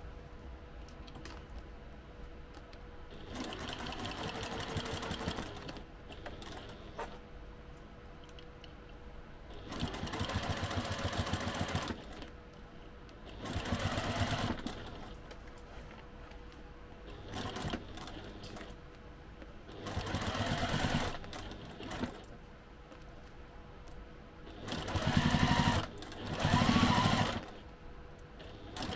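Sewing machine stitching in about seven short runs of one to three seconds, with pauses between, basting the fabric layers of a case together.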